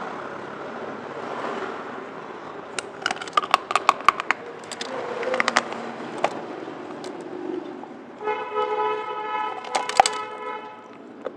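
Close-miked crunching of crisp food being bitten and chewed, a quick run of sharp crackles a few seconds in. Near the end comes a steady pitched toot lasting about two seconds.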